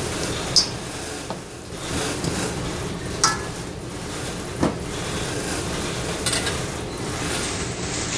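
A metal spoon stirring and mashing a raw ground beef mixture in a stainless steel bowl, with three sharp clinks of the spoon against the bowl.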